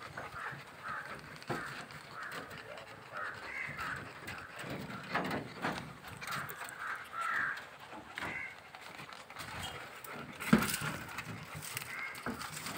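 A litter of young puppies whining and yelping in short, high calls, over and over. A sharp knock comes about ten and a half seconds in.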